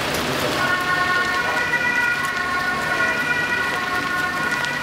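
An emergency vehicle's siren comes in about half a second in, holding steady tones over a constant background of street noise.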